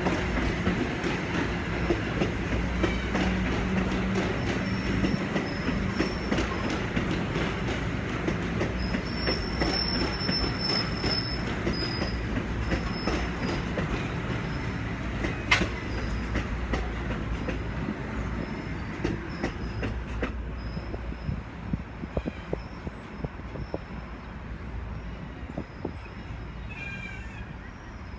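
Train rolling past on the tracks: steady wheel-on-rail rumble with many clicks over the rail joints and a brief high wheel squeal about a third of the way in, slowly fading as it moves away.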